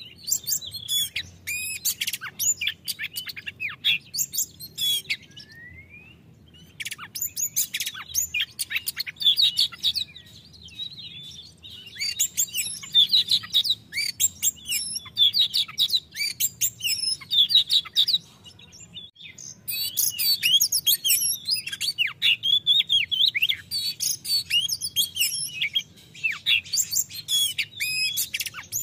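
Oriental magpie-robin (kacer) singing a full, open-voiced 'ngeplong' song: rapid runs of varied whistles and chirps in long phrases, broken by a few short pauses.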